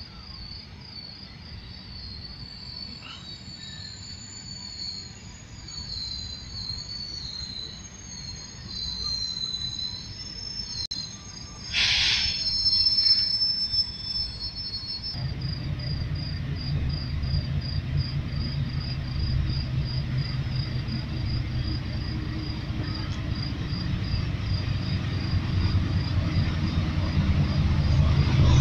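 Crickets chirping steadily, with a brief hiss about twelve seconds in. From about halfway a GEU-40 diesel-electric locomotive's engine rumble comes in and grows louder as the train approaches slowly.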